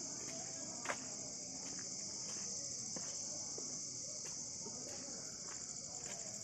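Steady high-pitched insect chorus, with a few faint clicks and one sharp click about a second in.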